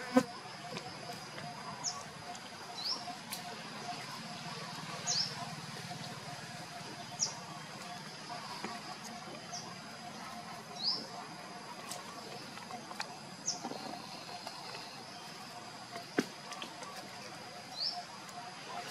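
Outdoor ambience: short high rising chirps every second or two over a steady high-pitched drone, with a few faint clicks.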